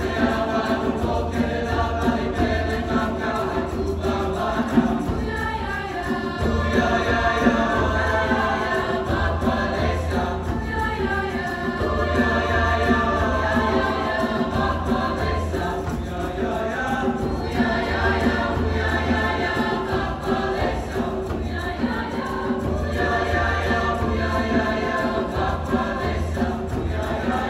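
Children's choir singing with a symphony orchestra accompanying, heard from the audience seats of a concert hall.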